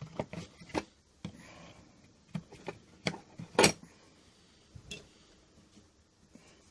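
Metal hand tools, spanners among them, clinking and knocking as they are picked up and handled: about seven separate sharp knocks spread out, the loudest a little past the middle, with a short soft rustle about a second in.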